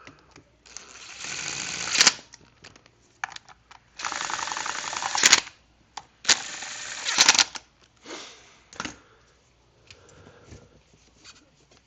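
A power driver with a 7 mm socket run in three rattling bursts of a second or so each, each ending in a sharp click as it runs the chain cover's bolts in and snugs them. Small clicks and tool-handling knocks follow.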